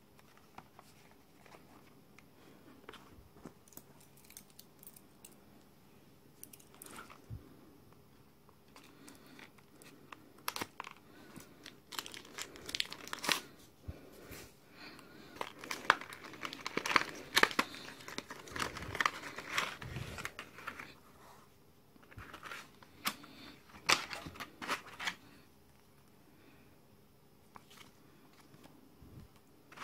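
Cardboard retail box being handled and opened by hand, with its clear plastic insert crinkling and a paper leaflet rustling: scattered crackles and sharp taps, sparse at first and busiest in the middle.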